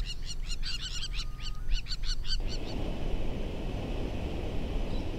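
Crowned lapwings giving a rapid string of shrill, piercing alarm calls as they mob a secretary bird in defence of their nest. About two and a half seconds in, the calls cut off and give way to the steady noise of a vehicle driving on a gravel road.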